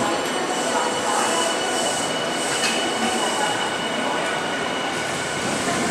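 Electric commuter train pulling out along a station platform: steady rolling wheel and running noise with a thin, steady high-pitched squeal over it.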